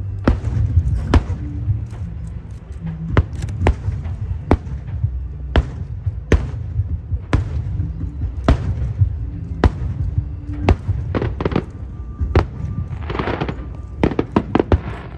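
Fireworks going off in quick succession: sharp bangs every half second or so over a deep rolling rumble, with a burst of crackling about thirteen seconds in. Music with a steady low tone plays along underneath.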